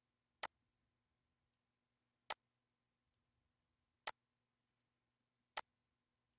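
Computer mouse button clicking as lines are drawn on screen: four sharp clicks spaced about 1.7 s apart, each followed by a much fainter click, against near silence.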